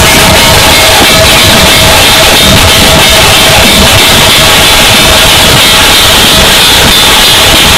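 A dhol-tasha jhanj troupe playing: big dhol barrel drums and tasha drums beaten with sticks, with jhanj cymbals, in a dense, unbroken rhythm. Very loud, close to full scale.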